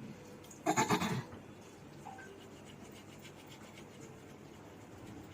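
Teeth being brushed with a toothbrush: a short, loud run of quick scrubbing strokes about a second in, then fainter, steady back-and-forth brushing.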